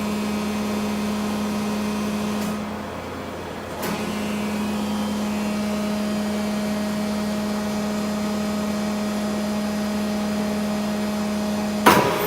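Hydraulic tube bender running with a steady machine hum. The hum drops briefly about a quarter of the way through and picks up again, a second higher tone joins it partway through, and a sharp clank comes near the end.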